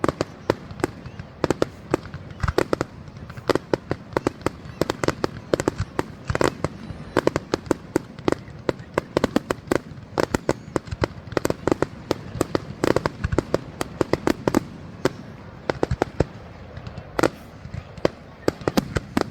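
Fireworks display: a dense, irregular run of sharp bangs and crackles, several a second, over a low steady rumble.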